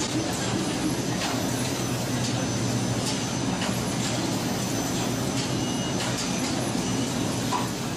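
Latex glove-coating machine running: a steady mechanical hum with occasional light clicks as its chain conveyor carries the glove formers through the dip tank.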